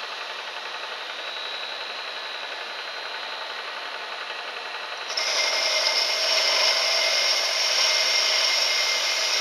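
Vertical milling machine spindle running steadily, spinning round stock in a collet against a lathe bit clamped in the vise, turning the stock's diameter down. About five seconds in the sound gets clearly louder and higher and stays that way.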